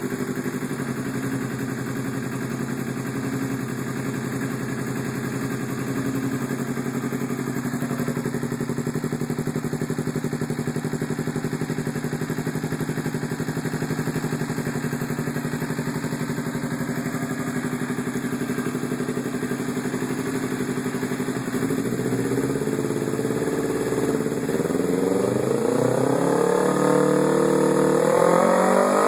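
Kawasaki Ninja 250R parallel-twin engine idling steadily through an aftermarket exhaust. About two-thirds of the way in it is revved, with the pitch stepping up and climbing higher near the end.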